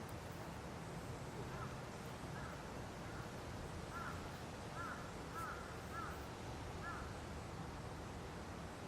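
Wind blowing through trees with leaves rustling steadily, and a bird calling about eight times in short arched notes from about a second and a half in until about seven seconds in.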